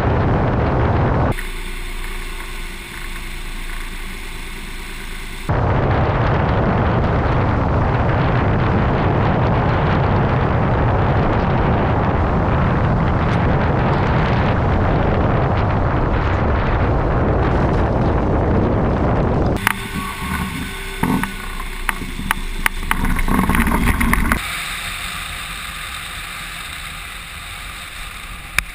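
Rushing airflow on the microphone of an electric motorised hang-glider trike in flight, its HPD20 electric motor and propeller giving a steady tone in the quieter stretches. About two thirds of the way through come a run of sharp clicks and knocks, and near the end the trike rolls over grass with a steadier, quieter running sound.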